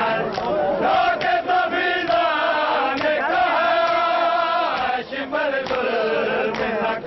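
Men's voices chanting a noha, a Shia lament, in unison. Sharp slaps recur about every half-second to second through the chant, the sound of hands beating on chests (matam).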